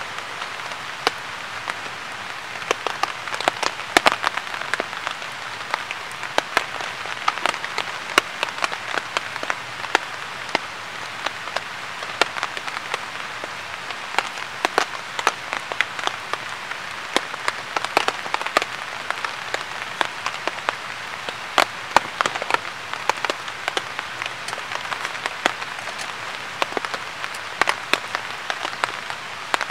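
Steady patter of rain or drips from the trees, with scattered sharp ticks at irregular intervals.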